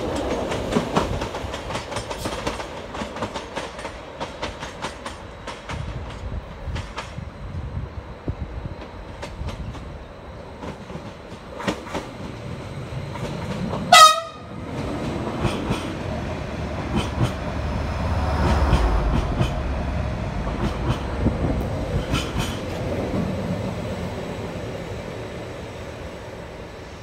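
Stadler FLIRT passenger trains running on the line, wheels clicking over rail joints above a steady rumble that swells to a deeper rumble later on. About halfway through comes one short, loud horn toot.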